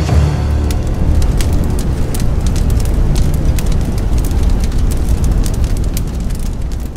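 Burning-fire sound effect for a flaming logo: a steady low rumble with scattered crackles, fading away near the end.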